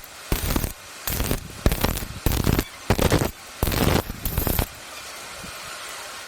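Stick-welding arc crackling in a series of short bursts, as if striking and breaking the arc again and again, followed by a steadier, quieter hiss near the end.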